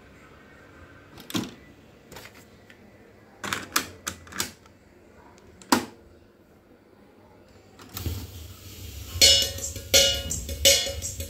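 Mechanical clicks and clunks of a Denon DR-350 cassette deck as a cassette is loaded, the door shut and its piano-key transport buttons pressed. About eight seconds in, music from the tape starts playing, with a regular beat.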